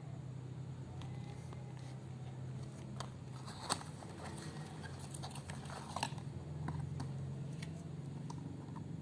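Product packaging being handled and opened: scattered clicks and crinkles of wrapper and box, with a sharp click a little under four seconds in and another about six seconds in, over a steady low hum.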